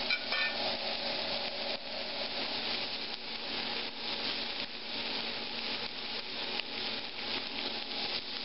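Peanut-oiled bone-in ribeye steak searing in a cast-iron skillet over high heat, a steady dense sizzle with fine crackling. The steak has just been flipped, so this is the second side searing.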